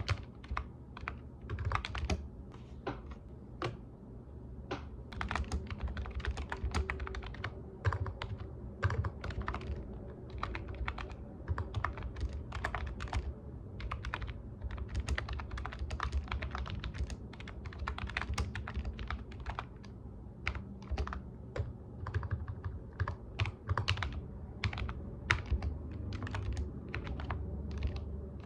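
Computer keyboard typing, with irregular bursts of key clicks and short pauses between runs.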